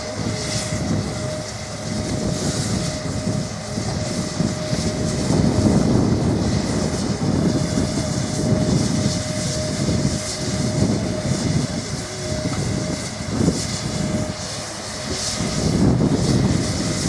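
Coaling a steam locomotive's tender from a lifted bulk bag: machinery running steadily with a constant whine, under rumbling noise that swells and fades every few seconds.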